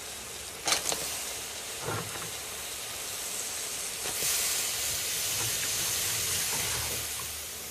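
Crab pieces hissing and sizzling in a hot pan of fried curry paste, with two sharp knocks in the first two seconds. The hiss grows louder about four seconds in.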